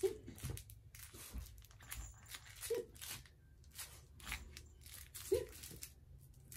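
Soft plush toy rings rustling and scuffing as they are handled and held over a small dog's snout, with a series of short scratchy bursts. A brief low tone sounds about every two and a half seconds.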